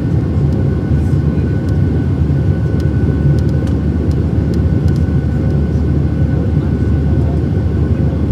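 Cabin noise of a Boeing 737-700 climbing after takeoff: its CFM56-7B turbofan engines and the rushing air make a steady, loud, low roar, with a few faint steady whines above it.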